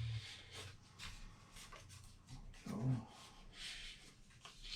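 Faint, scratchy rubbing against foam board as hot glue is worked along a seam to seal a glued-on part.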